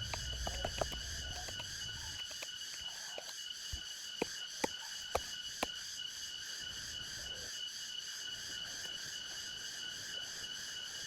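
Steady chorus of rainforest insects buzzing at several pitches, with a few sharp clicks about four to six seconds in.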